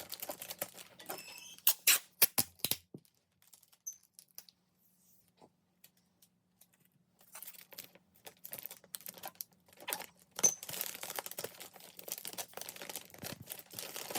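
Wrapping paper rustling and crinkling with sharp crackles as a plaque is wrapped, stopping for a few seconds about three seconds in, then starting again.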